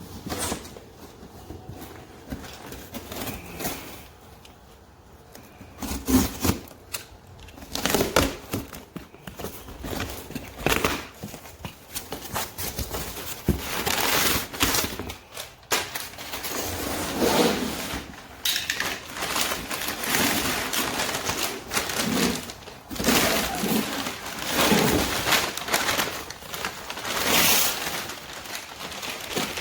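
A cardboard shipping box being opened and its packing handled: irregular tearing, scraping and crinkling that gets busier and louder about halfway through.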